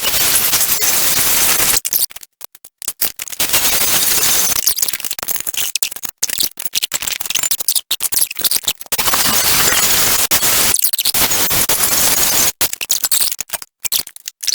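Angle grinder with a cut-off wheel cutting steel bracket stock, a loud harsh hiss, stopping and starting several times.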